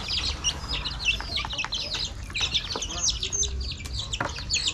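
Chicks peeping: many quick high chirps overlapping one another without a break.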